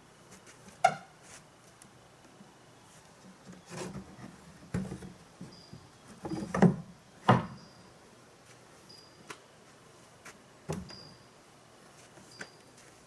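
Farm entrance gates and their quick-release latch hardware being handled, giving a series of separate knocks and clanks a second or more apart. The loudest come about a second in and twice around six to seven seconds in.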